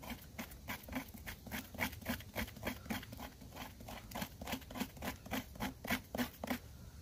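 Knife blade scraping along fatwood in quick, even strokes, about three a second, shaving off tinder for lighting a fire. The strokes stop about six and a half seconds in.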